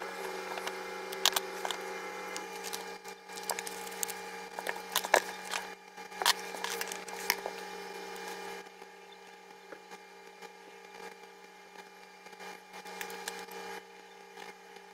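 Washi tape and a paper journal being handled on a desk, with scattered sharp clicks and taps over the first half. It turns quieter past the middle, leaving a few faint ticks as a marker writes on the page. A steady low hum runs underneath.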